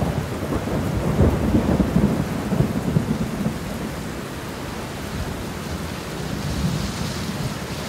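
Steady heavy rain with a rolling rumble of thunder that swells about a second in and fades out by about four seconds in.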